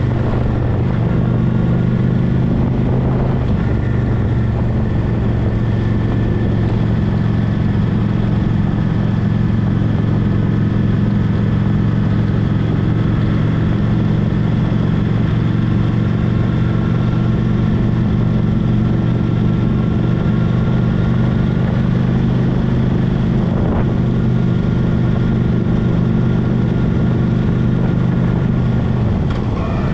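Honda Shadow Spirit VT750's 745 cc V-twin engine running steadily at cruising speed, heard from the bike itself, with tyre noise from the gravel road underneath. Near the end the engine note briefly drops and then rises again.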